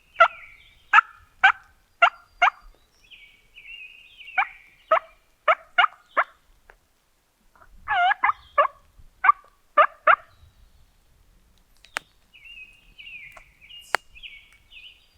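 Turkey yelping: runs of four or five sharp notes about half a second apart, with softer, higher notes between the runs and a longer, warbling call about eight seconds in.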